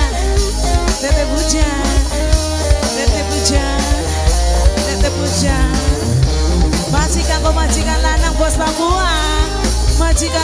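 A live tarling band playing an instrumental passage through the PA: electric guitars carry a melody of sliding, bent notes over a drum kit, kendang and a heavy bass line.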